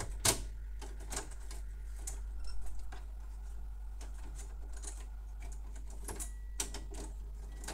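Scattered small clicks and scrapes of a metal pick tool prying plastic connector latches and ribbon cables loose on a Canon MF216n laser printer's main circuit board. The sharpest click comes about a quarter second in, and a cluster of softer ones follows a little after two seconds, over a steady low hum.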